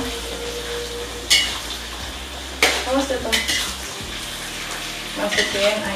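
Diced raw chicken breast sizzling in hot oil in a wok with sautéed onion, garlic and ginger as it goes in and is stirred, with a few sharp clanks of the metal spatula and bowl against the wok.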